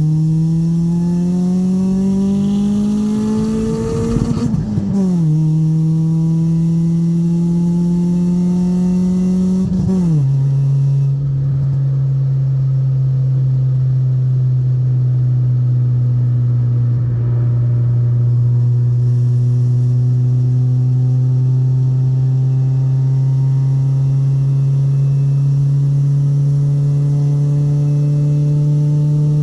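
Honda Civic EK four-cylinder engine pulling through the gears on a full header and cat-back exhaust whose leaks have just been sealed with a new gasket kit. The revs rise, drop at an upshift about four and a half seconds in, rise again, drop at a second shift about ten seconds in, then hold and climb slowly as the car cruises.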